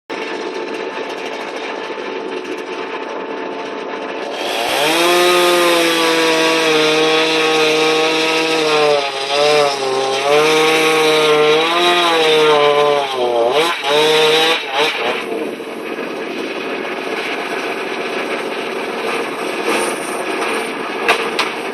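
Cat 336E excavator running with a tree-cutting saw head. About four seconds in, the saw spins up into a loud whine and cuts through wood for some ten seconds, its pitch dipping repeatedly as it bogs under the load, before dropping back to the steady run of the machine. A few sharp cracks come near the end.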